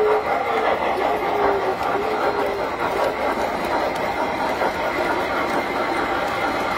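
Tinplate model trains running on the layout's track: a steady whirring and rattling of motors and wheels. A few short tones come in the first couple of seconds.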